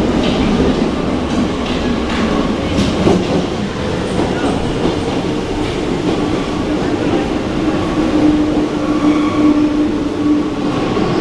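RATP MF77 steel-wheeled metro train pulling into an underground station platform: a loud, steady rumble of wheels on rail with clicks over the rail joints. A steady whine joins in about eight seconds in.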